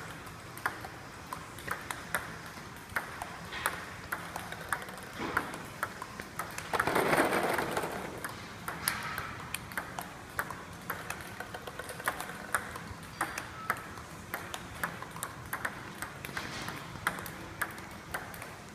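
Table-tennis ball clicking on the table and off the rackets in a continuous rally, about one to two sharp clicks a second. About seven seconds in, a louder burst of noise lasts about a second.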